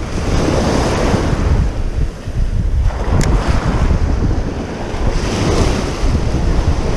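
Ocean surf breaking and washing up the beach in repeated swells, with strong wind buffeting the microphone. There is a brief click a little over three seconds in.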